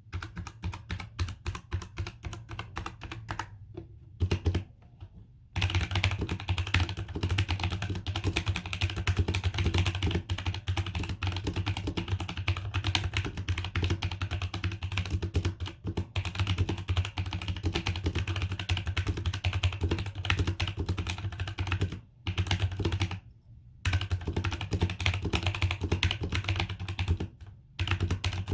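Typing on a Velocifire TKL78 tenkeyless mechanical keyboard with Outemu Brown tactile switches: a fast, continuous clatter of key clicks, broken by short pauses about 4 s in, around 22 to 24 s in and near the end.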